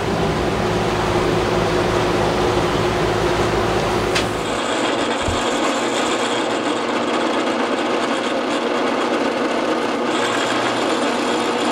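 A steady machine hum, then from about four seconds in a benchtop drill press running as it pre-drills and countersinks holes in quarter-inch plywood furring strips, with a faint high motor whine.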